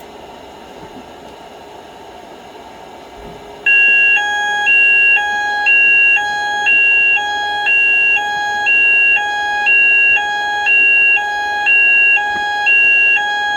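A steady hiss, then about four seconds in a fire alarm system's sounders go off loud. A steady high tone runs under a two-tone alarm that switches pitch every half second, with a lower beep pulsing about once a second. This is set off by a smoke test on a detector.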